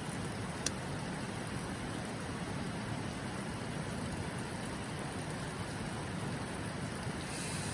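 Steady rush of flowing river water, with a single sharp click about a second in.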